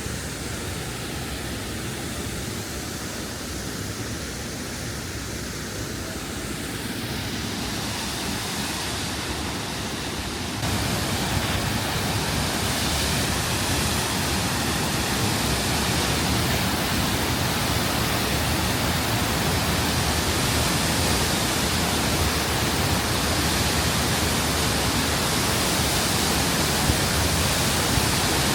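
Steady rushing of the Düden waterfall, with water crashing down. It gets suddenly louder and fuller about ten seconds in.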